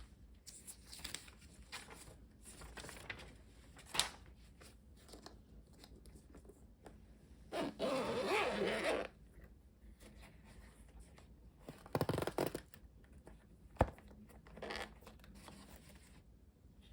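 Bose QC Ultra headphone packaging being handled and opened: scattered rustling, scraping and sharp clicks, with a louder rasping noise lasting about a second and a half near the middle and a shorter one a few seconds later.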